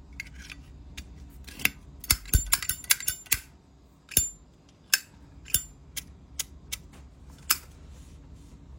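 Brass Zippo lighter being handled: a run of sharp metallic clicks and clinks from the hinged lid and case, thick for a second or so near the middle and then single clicks every half second or so.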